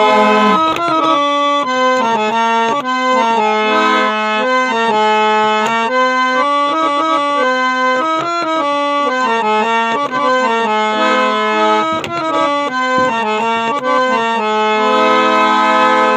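Instrumental break in a Sindhi song: a free-reed instrument plays a melody of held notes over a sustained low drone note.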